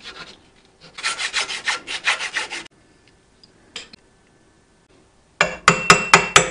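About a second in, a run of quick back-and-forth rasping strokes of hand work on metal. Near the end, a fast series of sharp knocks with a metallic ring as the new aluminium drive pulley is driven onto the air-compressor motor's shaft.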